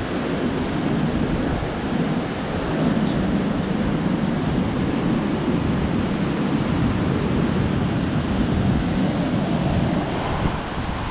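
Ocean surf breaking and washing up a sand beach in a steady rush, with wind buffeting the microphone.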